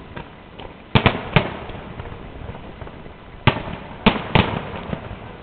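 Fireworks shells bursting overhead: a series of sharp bangs, three close together about a second in and three more from about three and a half seconds, each dying away quickly.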